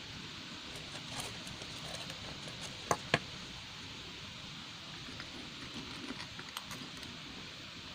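Propane torch flame hissing steadily, with scattered light metallic clicks and clinks; two sharp clicks about three seconds in are the loudest.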